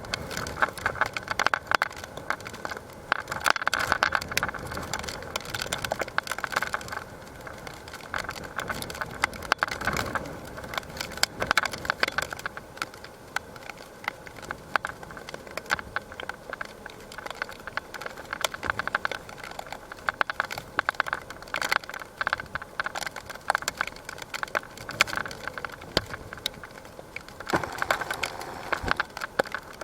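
Typhoon wind and rain with a constant crackle and rattle of many small clicks, swelling in gusts a few seconds in, around ten seconds and near the end.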